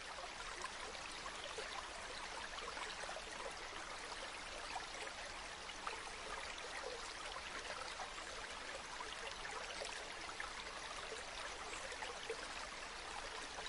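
Steady trickling, lapping water with many small drips and splashes.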